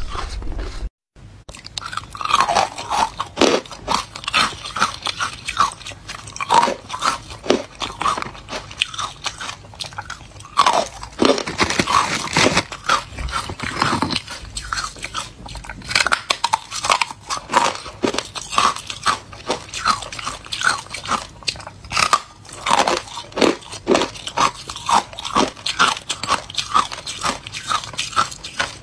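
A person biting and chewing chunks of carbonated white ice close to the microphone: a steady run of loud, brittle crunches, bite after bite, with a short break about a second in.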